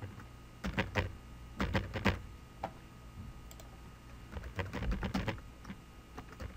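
Computer keyboard typing in short, irregular bursts of keystrokes separated by brief pauses, with a quieter stretch in the middle.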